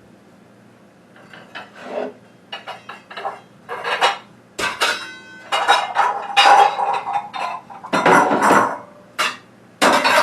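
Dishes and bowls clattering and knocking together as a bowl is taken out and set down, a string of sharp clinks, some ringing briefly, starting about a second in.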